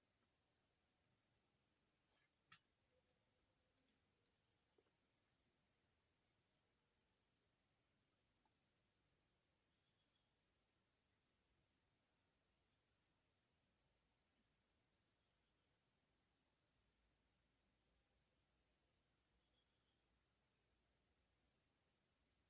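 Steady, high-pitched chorus of insects such as crickets or cicadas, unchanging throughout.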